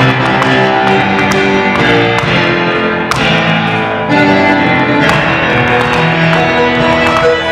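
Instrumental music for the polo gitano dance, layered held notes shifting in pitch every half second or so, with a few sharp clicks in among them.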